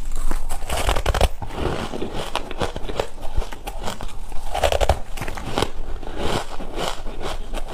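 Biting and chewing chunks of frosty, powdery frozen ice: a steady run of crisp crunches and crackles.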